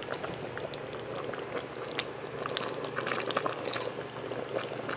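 Thick tomato-based pork menudo stew simmering in a pan, the sauce bubbling with many small, irregular pops.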